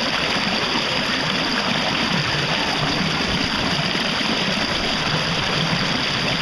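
Steady rush of churning, bubbling water.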